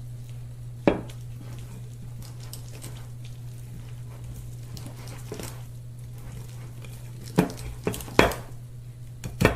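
A kitchen utensil knocking and clinking against a mixing bowl of pancake batter: one sharp knock about a second in, then a few more near the end, over a steady low hum.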